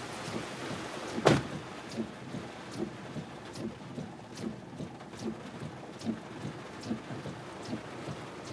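Rain on a car, heard from inside the cabin, with a regular tick a little more than once a second and one sharp knock about a second in.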